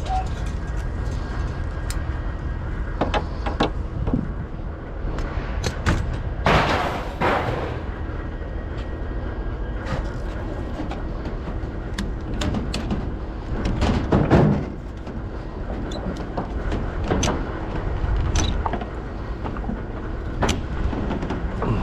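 Vehicle running with a steady low rumble, with scattered clanks and rattles, a louder rush about six seconds in and another loud patch about fourteen seconds in.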